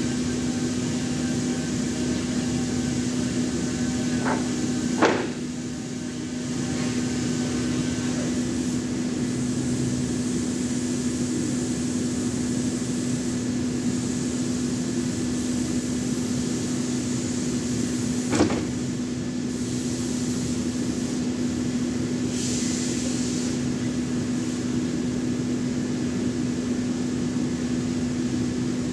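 Power hand saw's electric motor running steadily at one pitch, with two sharp knocks, one about five seconds in and one past the middle.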